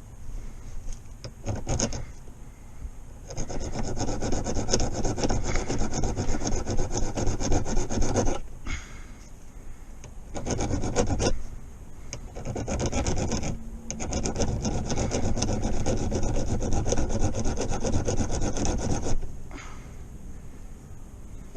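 Hand filing: a file rasping back and forth in long runs of quick strokes, with short pauses between.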